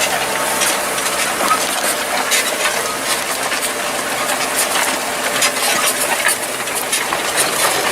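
Machinery rattling and clattering, a rapid, irregular scatter of sharp clicks over a faint engine hum.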